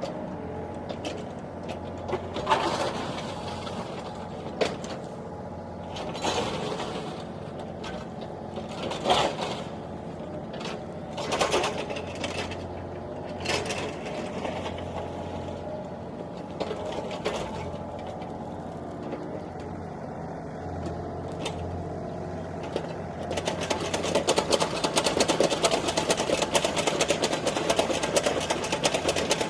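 Sany mini excavator's diesel engine running steadily as it digs a narrow drainage ditch, with a few separate scraping knocks from the bucket working the soil. About 23 seconds in, a fast, dense mechanical clatter sets in and keeps on.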